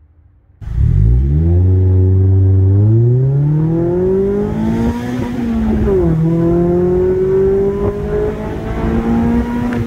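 A 2021 Mazda Miata's 2.0-litre four-cylinder engine accelerating, heard from inside the cabin. It starts about half a second in and climbs in pitch, the pitch drops sharply about six seconds in as it changes up a gear, then it climbs again.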